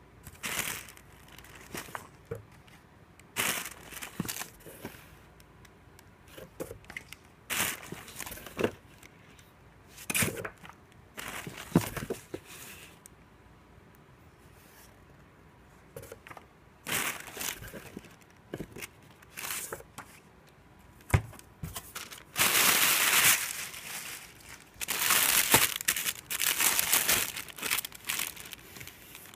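Paper leaflets and plastic produce bags being handled and rustling, in short separate bursts with quiet gaps between them. The rustling becomes denser and louder over the last third, as the bagged vegetables in the box are moved.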